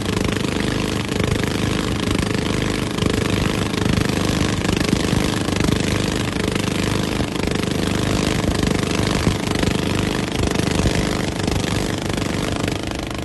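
Motorboat engine running steadily, with a rapid rattling pulse, under heavy rushing wind and water noise.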